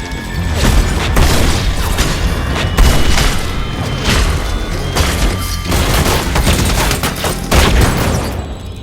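Heavy, continuous gunfire from several guns, shots and impacts overlapping thickly over a deep booming rumble, cutting off suddenly just before the end; music plays beneath.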